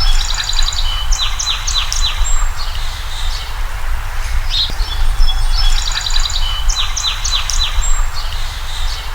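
Songbird singing a phrase of quick high chirps and short falling notes, the same phrase coming back about every five seconds, over a steady low rumble.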